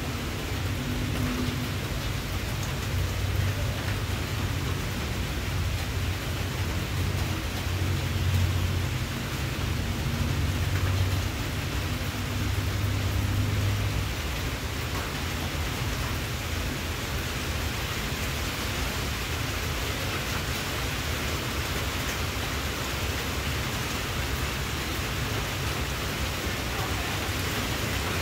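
Steady hissing noise, with a low rumble that fades out about halfway through.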